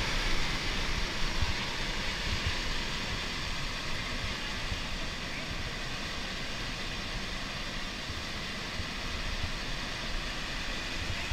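Flash flood of glacial meltwater rushing down a mountain stream channel: a steady, heavy roar of water with low irregular knocks from boulders carried along in it.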